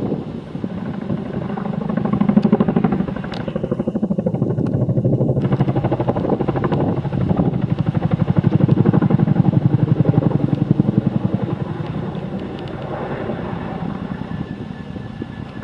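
Boeing CH-47 Chinook tandem-rotor helicopter flying low overhead, its two rotors beating in a rapid, steady pulse. It is loudest about nine seconds in as it passes almost directly above, then fades slightly.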